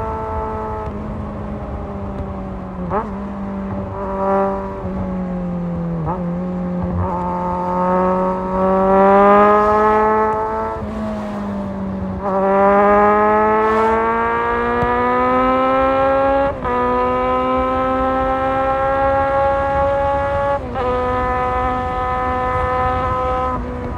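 Kawasaki Z1000 inline-four engine under way, its revs climbing in long pulls and dropping briefly at each gear change, over a low rush of wind noise.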